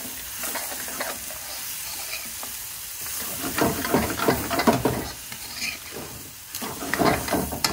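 Diced onions and whole spices sizzling in oil in a karahi, stirred with a metal spoon. The spoon scrapes and knocks against the pan in a run of strokes about three and a half seconds in and again near the end.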